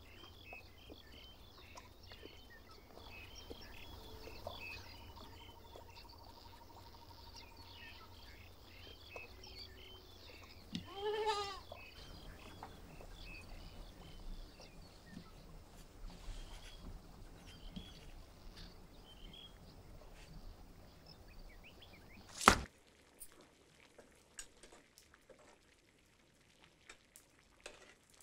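A young goat bleats once, about eleven seconds in, over a faint outdoor background of chirping. Roughly two-thirds of the way through, a single sharp, loud strike is the loudest sound.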